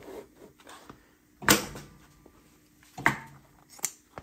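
Three sharp mechanical clacks, each trailing off in a short hiss, from handling work at a cylinder-bed industrial sewing machine: the first about a second and a half in, the last two close together near the end. The machine is not stitching.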